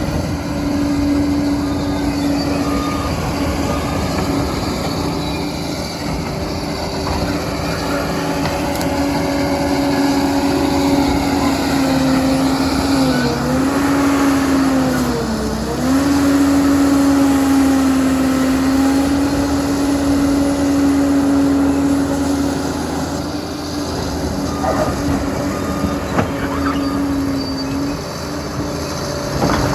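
Diesel engine of a Liebherr PR 746 crawler dozer running steadily at working revs. Its note sags briefly twice in the middle, as the engine takes load, and then recovers.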